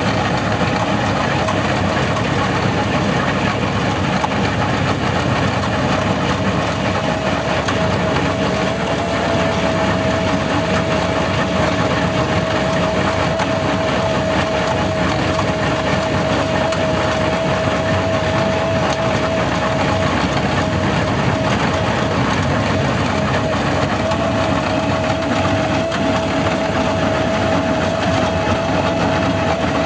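Skid-steer loader engine running steadily while powering a hydraulic asphalt planer attachment, with a steady whine that sets in about eight seconds in and holds.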